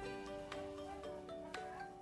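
Background music: soft mallet-percussion notes, like a marimba or glockenspiel, struck about every half second.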